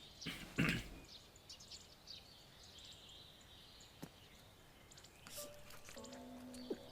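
Faint outdoor ambience with soft high chirps, a few quick clicks in the first second, and low steady tones coming in near the end.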